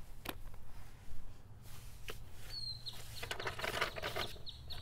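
A couple of light clicks as the plastic tool is handled, then, from about three seconds in, the paper pages of an instruction booklet rustling as it is picked up and opened. A thin, steady high tone starts just before the rustling.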